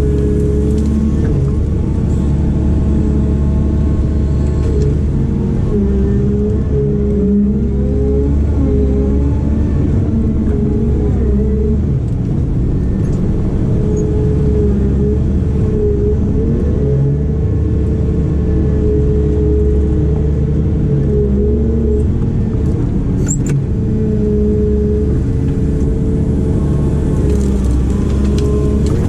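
Heavy diesel earthmoving machine running under working load, its engine note and hydraulic whine wavering in pitch as the load changes, most noticeably about a third of the way in.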